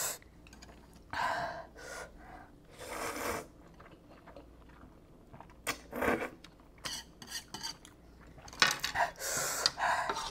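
Mukbang eating sounds: a spoon and chopsticks clinking and scraping on a metal tray, between several short, sharp breaths in through the mouth against the heat of the spicy noodles.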